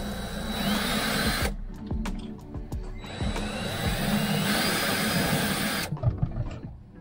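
Power drill running a hole saw through a wooden van wall panel in two runs, the second starting about three seconds in, each with a rising motor whine. Background music underneath.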